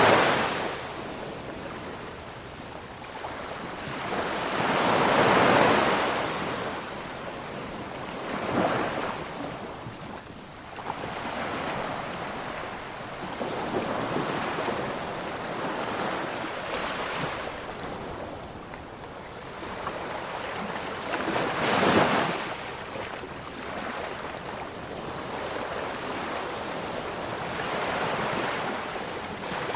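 Ocean waves rolling in and breaking on the shore, the surf rising and falling in swells every few seconds, the loudest breaking about 5 and 22 seconds in.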